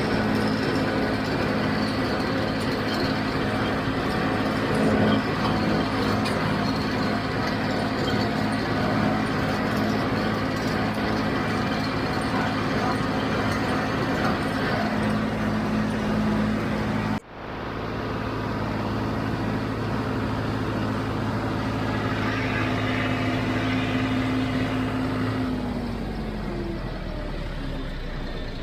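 John Deere 5055D tractor's three-cylinder diesel running steadily under load while pulling a John Deere 348 small square baler, with a brief break partway through. Near the end the engine note drops as it throttles down.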